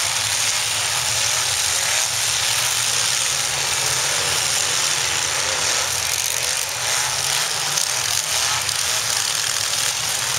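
Many demolition derby car engines running and revving together in a steady, loud din, with the hum of a large crowd in the stands.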